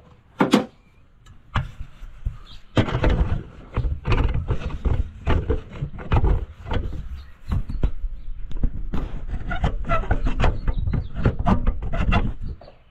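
Camera handling noise: one sharp knock about half a second in, then from about three seconds a busy run of knocks, bumps and rubbing as the camera is moved and propped in place on the tractor.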